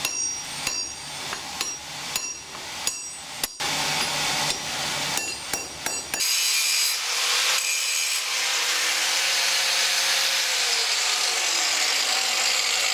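Hammer blows on steel tong reins at an anvil, irregular strikes about every half second, each with a short metallic ring. About six seconds in this cuts abruptly to a power tool grinding the steel steadily to finish the edges; a tone in it falls in pitch near the end.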